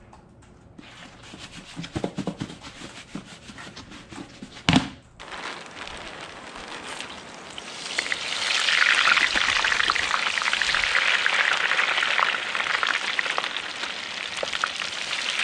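Frozen tater tots poured into hot peanut oil, the oil sizzling loudly and steadily from about eight seconds in. Before that, rustling and crackling handling noise with a sharp knock just under five seconds in.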